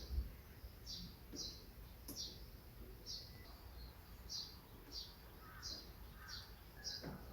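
A small songbird chirping over and over, short high notes each dropping in pitch, about one to two a second. A low rumble of outdoor noise runs underneath.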